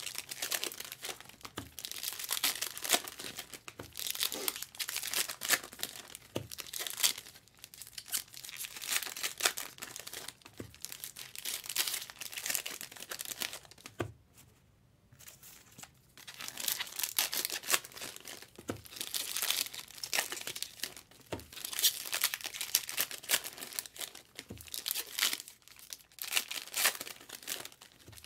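Packs of 2023 Topps Allen & Ginter baseball cards being torn open, their wrappers crinkling in irregular bursts, with a brief pause about halfway through.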